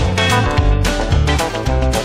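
Background music with a steady beat: bass notes under regular drum hits.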